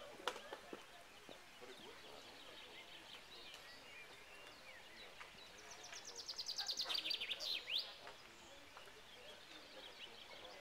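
Songbirds chirping in woodland. About six seconds in, one bird sings a loud, quick phrase of rapid notes falling in pitch that ends in a couple of downward sweeps. A single sharp click sounds right at the start.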